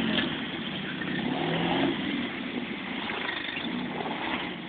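Four-cylinder off-road 4x4 engine running at low revs, with a few light throttle blips that rise and fall in pitch.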